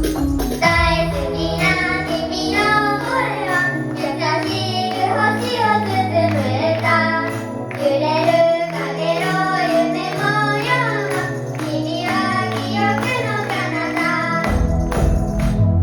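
Female vocals singing a J-pop idol song over a backing track with a steady bass line. A heavier low part comes in near the end.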